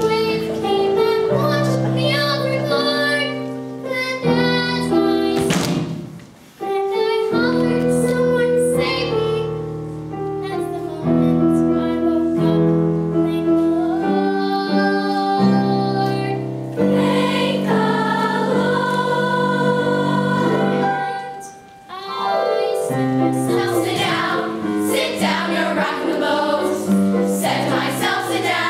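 A boy soloist sings a brisk show tune with a youth chorus joining in, over musical accompaniment. The music drops away briefly twice between phrases.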